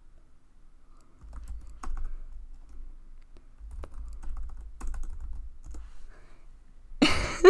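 Typing on a computer keyboard: scattered, fairly quiet key clicks, then a short, much louder noise near the end.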